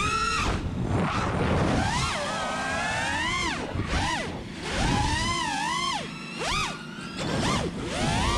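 FPV freestyle quadcopter's brushless motors (Xing 2206 1700Kv spinning Ethix S4 props) whining, the pitch swooping up and down sharply as the throttle is punched and cut through flips and dives. The whine drops away briefly several times in the second half, on throttle chops.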